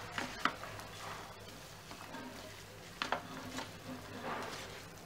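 A spatula stirring and scraping a mix of green peas and minced mutton in a pan, with a few short scrapes, two of them about half a second in and about three seconds in, over a faint sizzle of frying.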